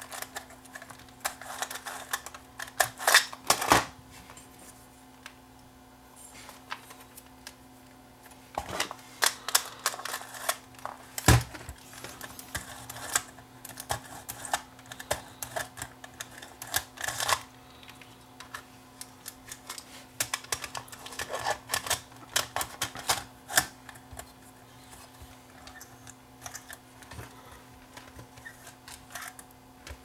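Metal cassette compartment of a Sony CCD-TRV128 Hi8 camcorder worked by hand, giving irregular clicks, snaps and small rattles as it is pushed open and shut to test a lid that sometimes won't close fully. A cluster of louder clicks comes about three seconds in, and the sharpest snap a little before the middle.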